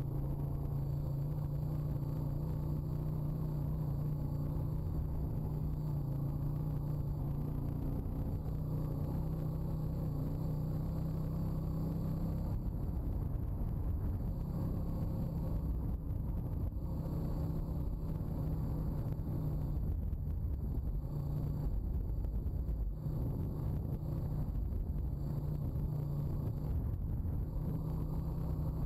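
Honda ATV's single-cylinder four-stroke engine running steadily as the quad rides across rough ground, a low hum with rumble, dipping briefly a few times.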